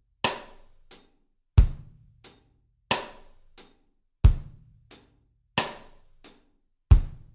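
Background music: a slow, sparse drum beat, with bass drum and snare hits alternating about every 1.3 seconds and a light tick between each.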